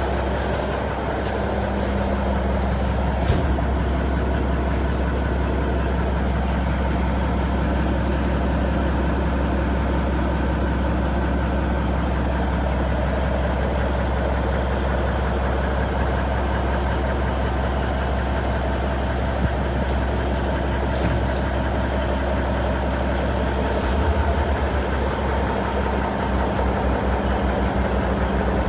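Caterpillar diesel engine of a 1993 Peterbilt 379 idling steadily with a deep, even drone. Near the end the low drone turns into a faster pulsing.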